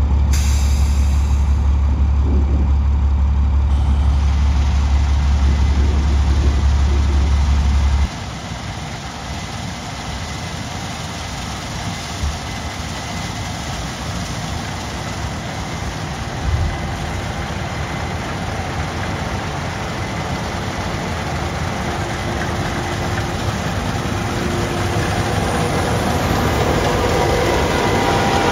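Farm machinery running in a field. First a steady deep rumble that stops abruptly about eight seconds in. Then a Case IH 8250 combine harvester running while harvesting, growing gradually louder and picking up a faint whine as it comes closer.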